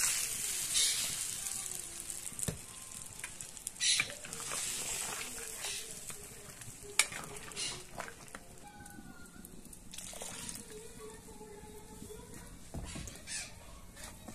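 Blended green chile sauce sizzling as it is poured into a hot clay cazuela of pig's feet on a wood fire. A metal spoon clinks and scrapes against the clay as the stew is stirred, and the sizzle dies down as the sauce settles.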